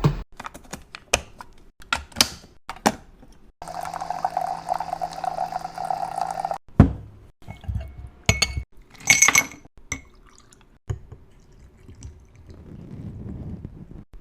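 Taps and knocks, then liquid pouring steadily for about three seconds, then a few ringing clinks of glassware.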